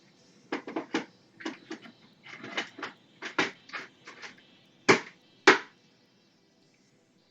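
Irregular knocks and clicks of hard plastic parts being handled and fitted together while a cat exercise wheel is assembled, with two sharper knocks about five seconds in before it goes quiet.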